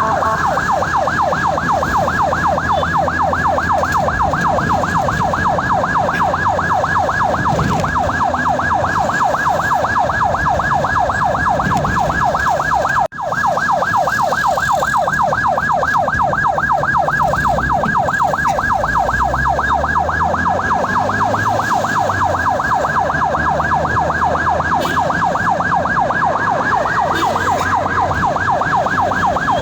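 Ambulance siren on its fast yelp setting, rising and falling about four to five times a second without a break, over a low rumble of the vehicle on the road. The sound cuts out for a moment about halfway through.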